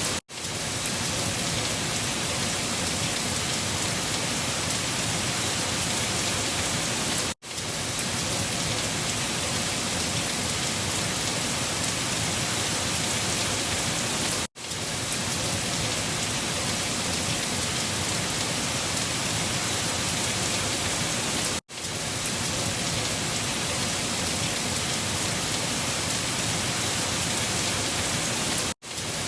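Steady hiss of rain. It is a looped recording that cuts out to near silence for an instant about every seven seconds, then quickly swells back in.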